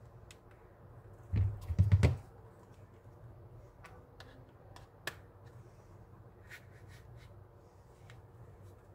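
Handling noise from a plastic power bank and a smartphone: a few dull knocks about a second and a half in, then scattered light clicks, one sharper click near the middle.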